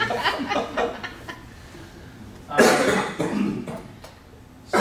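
A person coughs loudly once about two and a half seconds in, after brief voices or chuckling die away at the start.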